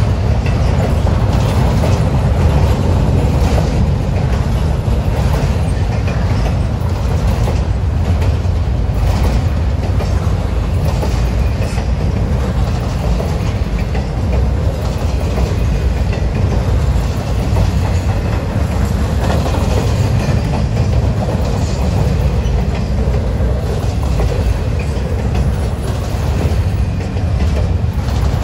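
Pan Am Railways freight train rolling past, a steady low rumble of steel wheels on rail with faint repeated clicks over the rail joints.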